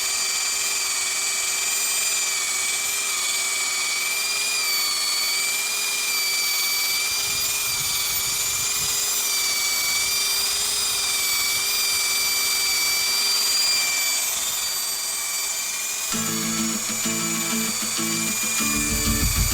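Plastic welding machine's motor running with a steady high whine. Music with a low, pulsing beat comes in near the end.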